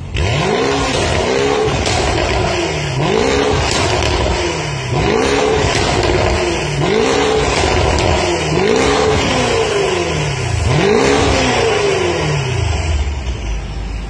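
BMW i8's turbocharged three-cylinder engine revved through a Fi Exhaust valvetronic cat-back system with catless downpipe. It is blipped six times, each rev rising and falling, about one every two seconds, then settles toward idle near the end.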